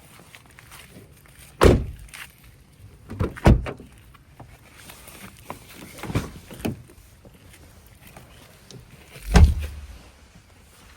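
Hyundai Sonata interior fittings being worked by hand: a string of sharp clunks and thuds, like latches, lids or a door shutting. They come in about five groups, the loudest about a second and a half in and about nine seconds in.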